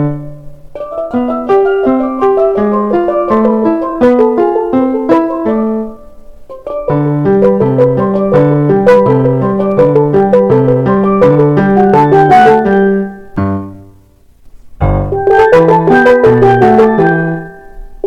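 Instrumental music: a quick melody of short, struck-sounding notes over a bouncing bass line. It breaks off briefly about six seconds in and again for about a second and a half past the middle, then starts again.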